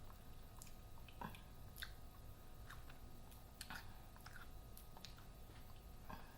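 Faint chewing of a taco: soft mouth clicks and small crunches scattered through otherwise near-silent room tone.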